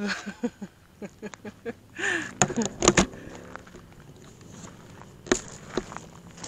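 Camera being handled close to its microphone: rubbing and several sharp knocks, loudest about two and a half to three seconds in, with another knock past five seconds. Short wordless voice sounds come in the first two seconds.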